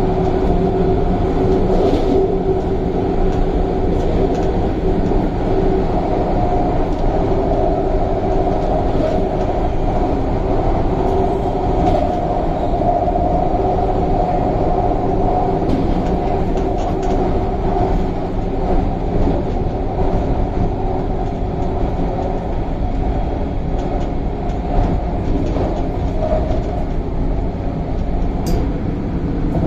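Inside a carriage of an MTR Tung Chung Line CAF train running at steady speed: a continuous rumble of wheels on track under a steady electric hum, with a few faint clicks.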